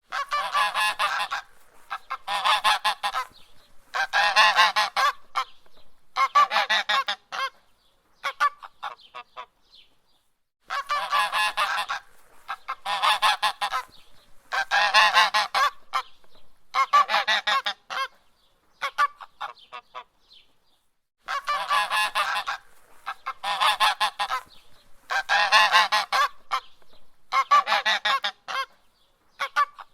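Goose honking in runs of rapid, repeated honks. Each run lasts about a second, and there are four loud runs in a row, then fainter scattered honks and a brief pause. The same pattern comes round three times, about every ten seconds.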